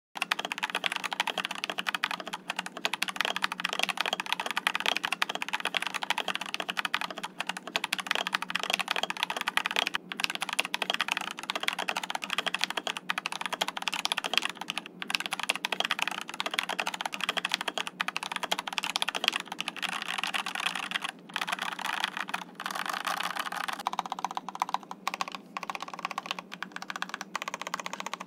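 Continuous fast typing on an Epomaker TH68 mechanical keyboard fitted with stock, unlubed Gateron Yellow linear switches: a dense, steady stream of keystrokes.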